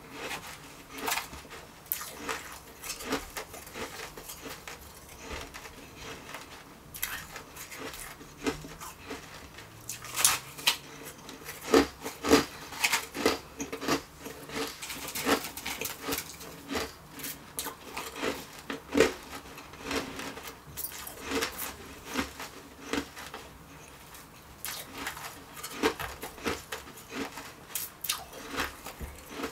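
Close-up crunching and chewing of refrozen shaved ice: a rapid, irregular run of crisp crunches, mixed with the softer crunch of the ice being packed and squeezed by hand.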